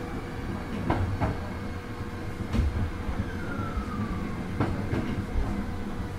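Sanyo 5000 series electric train car heard from inside, rolling with a low rumble and a few sharp clicks of wheels over rail joints. A short falling whine comes about halfway through as the train slows into its final stop.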